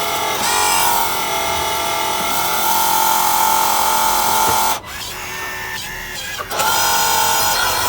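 Heavy earthmoving machinery running with a steady high-pitched whine. The sound cuts away abruptly about five seconds in and comes back a second and a half later.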